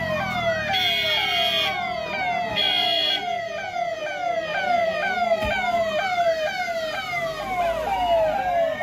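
Police vehicle sirens: a slow rising wail gives way to a fast, repeating up-and-down yelp of about two to three cycles a second, with more than one siren overlapping. Two short steady tones cut in, about a second in and again about three seconds in.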